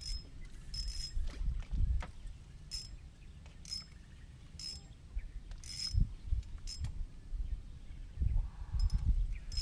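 Spinning fishing reel clicking with a metallic ring, short ticks roughly once a second as the reel is worked, over a low rumble of wind on the microphone.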